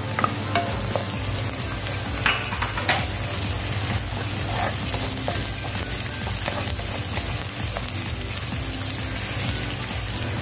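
Chopped onion, garlic and ginger sizzling in hot oil in a wok, with a wooden spatula scraping and tapping against the pan as it stirs them. The frying hiss is steady, and scattered short clicks come from the spatula.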